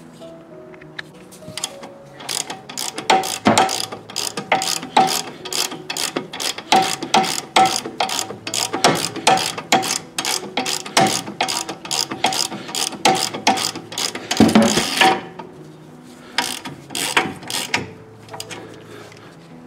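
Hand ratchet wrench clicking in quick back-and-forth strokes as a socket turns a front brake caliper bolt. A dense run of clicks stops about fifteen seconds in, followed by a few more strokes shortly after.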